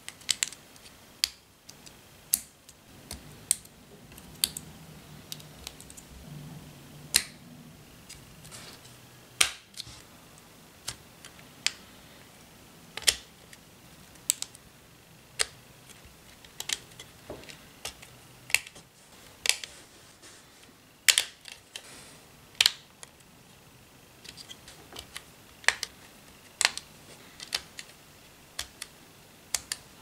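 Lego Technic pieces snapping together: a string of sharp, short plastic clicks, irregularly spaced at roughly one a second, as pins and connectors are pressed into beams and panels during assembly.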